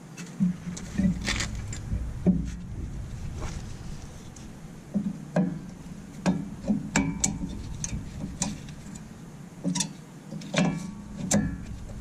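Brake pads and brake hardware being handled and fitted on a truck's front brake: irregular metallic clicks and clinks, a few ringing briefly.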